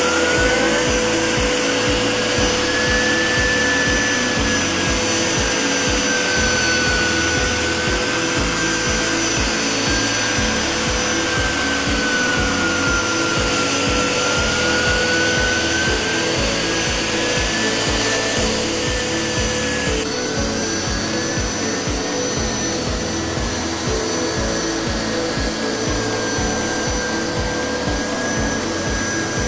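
Hoover XL carpet cleaner running steadily as it washes a rug. It gives a continuous motor noise with a high whine that drifts slowly up and down in pitch.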